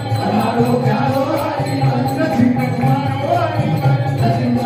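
Hindu devotional music: voices singing a bhajan to a steady beat of jingling hand percussion.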